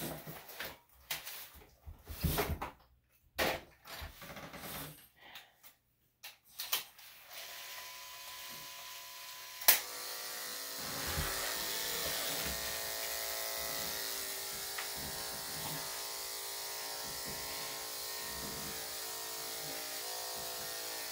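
Scattered short handling noises, then electric dog clippers with a #5 blade running steadily from about halfway through, cutting a Maltese's coat. A sharp click comes about ten seconds in, after which the clipper hum is a little louder.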